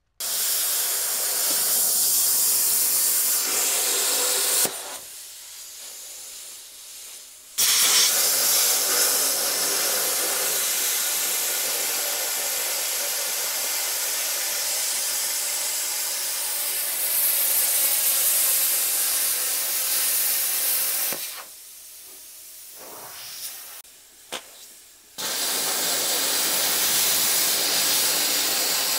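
Cutting torch running with a steady hiss as it cuts through steel pipe. The hiss drops to a much quieter level twice for a few seconds before coming back on.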